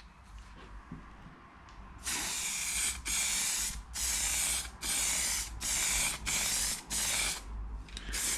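Aerosol can of guide coat spraying in about seven short blasts, each under a second, misting guide coat over primed car bodywork so that low spots will show when it is block sanded.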